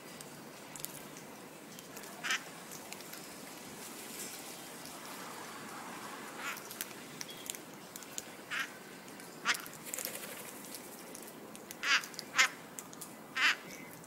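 Cherry-headed conures (red-masked parakeets) calling: about seven short squawks at irregular intervals, the loudest three close together near the end, over a steady background hiss.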